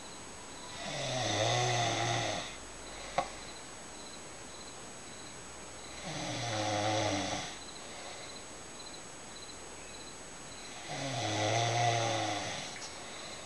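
A woman snoring in her sleep: three long snores about five seconds apart. A single sharp click just after the first snore.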